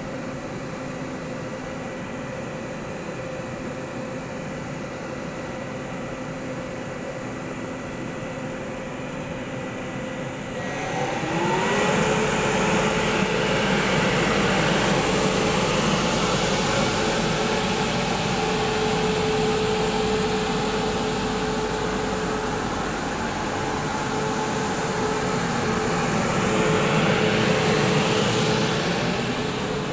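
Taiwan Railway EMU500 electric multiple unit standing at the platform with a steady electrical hum, then pulling away about ten seconds in. A motor whine glides up in pitch and holds steady while wheel-on-rail noise builds as the train gathers speed.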